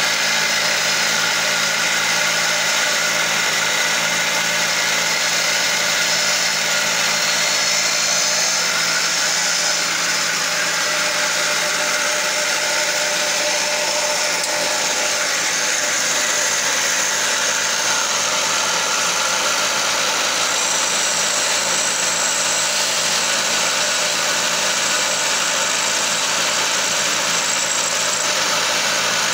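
A wood lathe running steadily while a hand-held chisel cuts into a spinning wooden spindle, making a continuous mechanical hum and scrape.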